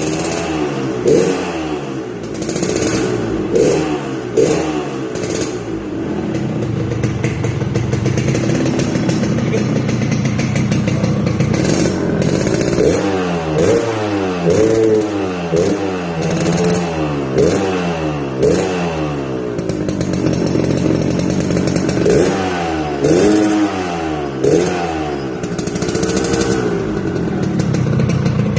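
Yamaha RX-King two-stroke single-cylinder motorcycle engine revved through its stock exhaust, giving the gruff, snoring 'ngorok' note with a ringing 'ting-ting'. It is blipped up and down in quick runs, with a couple of spells held at steady revs between them.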